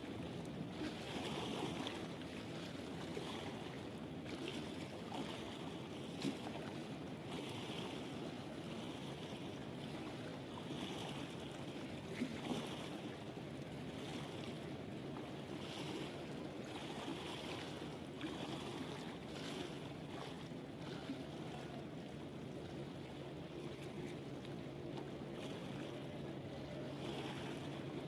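Large passenger ship under way: a steady low engine hum under the wash of water and wind noise on the microphone.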